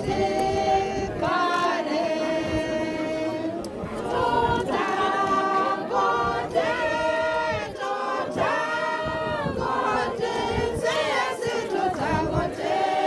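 A choir of voices singing together, with long held notes.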